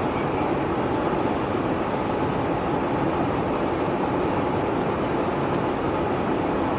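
Steady, unchanging noise of engines and rushing air inside a KC-135 Stratotanker in flight.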